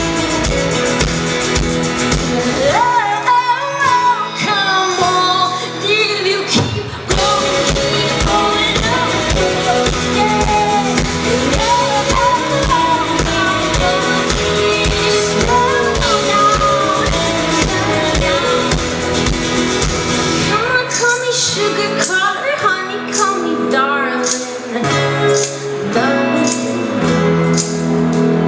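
Live pop-rock band playing with a female lead singer. The bass drops out twice, briefly, leaving the voice over the higher instruments.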